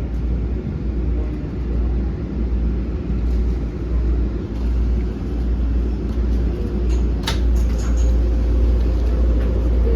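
MBTA Blue Line subway car running along the track, heard from inside the car: a steady low rumble, with a single sharp click about seven seconds in.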